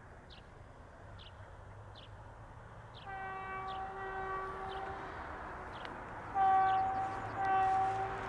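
Diesel locomotive horn, a class 060-DA, sounding two pairs of short blasts on one steady pitch; the second pair is louder.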